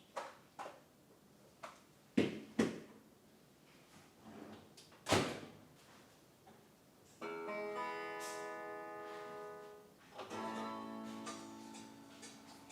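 Several sharp clicks and knocks in the first half, then acoustic guitar music: two strummed chords, each left ringing for a couple of seconds.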